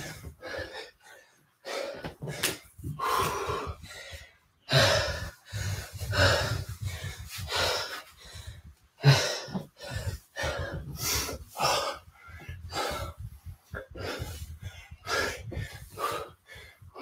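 A man breathing hard, with sharp irregular gasps, winded from a kettlebell workout.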